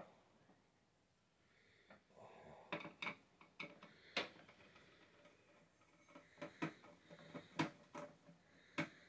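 Scattered sharp clicks and light taps of small screws and a screwdriver on a PC case and motherboard, as the motherboard's screws are worked loose and handled. There are about a dozen clicks, mostly in the second half.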